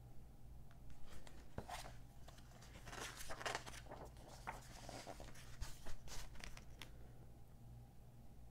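Magazine pages being turned by hand: several short paper rustles and flaps, over a steady low hum.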